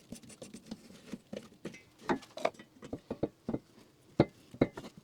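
Irregular light clicks and knocks of hand tools and bolts being handled on a welded steel machine stand, with two sharper knocks about four seconds in.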